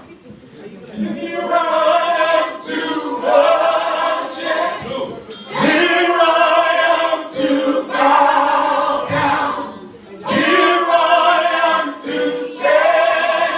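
A choir singing a cappella in phrases of held notes, with short breaks for breath between them.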